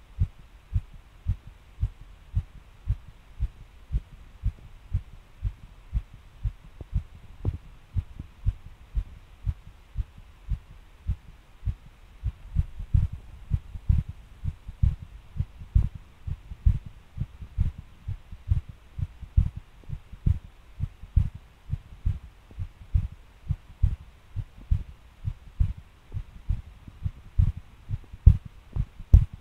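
A person's heartbeat, dull low thumps in a steady rhythm at first, then from about twelve seconds in faster, harder and irregular: the heart suddenly changing pace and thumping hard.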